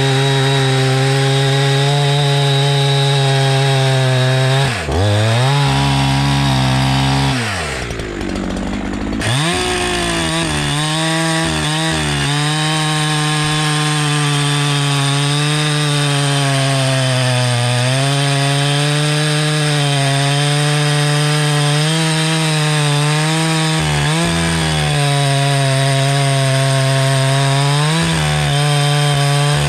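Holzfforma G372XP 71cc two-stroke chainsaw running at full throttle, its 28-inch full-chisel chain cutting through a log. The engine pitch dips briefly about five seconds in, then drops further and revs back up a few seconds later. After that it holds steady under load with small wavers in pitch.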